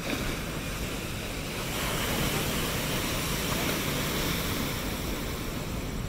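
Large ocean waves breaking and washing up the shore in a steady rush of noise, swelling and getting brighter about two seconds in as a wave surges in.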